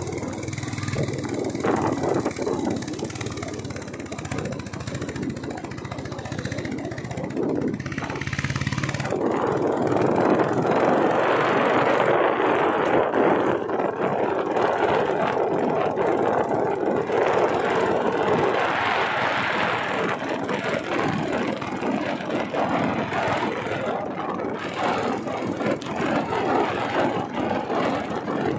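A vehicle driving along a paved mountain road: steady engine and road noise, with a louder rushing noise, likely wind on the microphone, coming in about a third of the way through.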